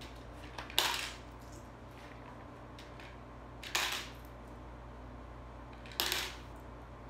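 Pennies dropped one at a time through the slot of a small coin bank, landing with three short metallic clinks about two to three seconds apart.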